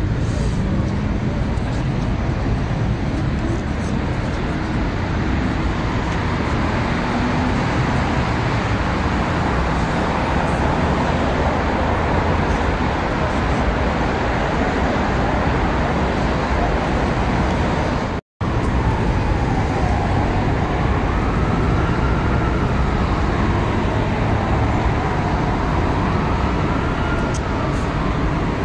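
Steady city road-traffic noise with no chanting. It is broken by a split-second dropout about two-thirds of the way through. After that, a faint tone rises and falls slowly under the traffic.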